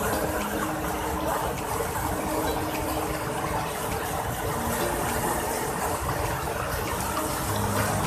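Narmada River rapids rushing and churning as they spill over the rocky lip of Dhuadhar waterfall: a steady, dense rush of white water.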